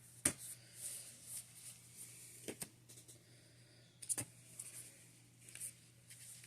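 Paper and sticker sheets being handled: soft rustling with a few sharp taps and clicks.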